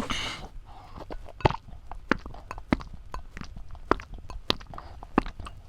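Close-miked chewing of raw egg: wet mouth smacks and clicks, about seven sharp ones at a steady pace of roughly one every half-second.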